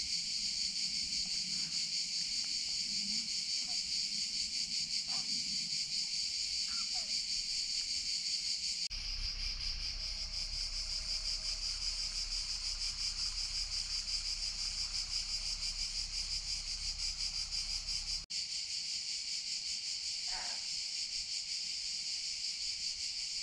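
Dense chorus of summer insects: a steady, shrill, finely pulsing buzz that does not let up. A low rumble joins it for a stretch in the middle.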